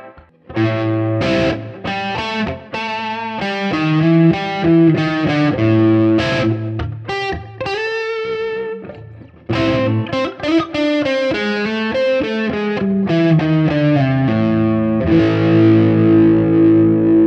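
Electric guitar with a CenterPunch humbucker in full (unsplit) humbucking mode, played through overdrive on the neck pickup: single-note lines and chords. There is a short break about nine seconds in, and it ends on a long held chord ringing out.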